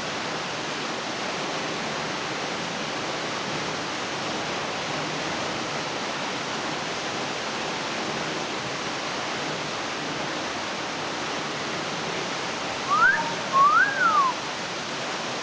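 Steady rush of a small waterfall pouring into a rock pool. About 13 seconds in, a short two-note whistle cuts through: a quick rising sweep, then a rise and fall.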